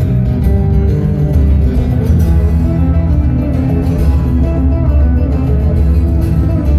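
Solo steel-string acoustic guitar played live through the venue's PA, plucked melody notes ringing over a strong, deep bass.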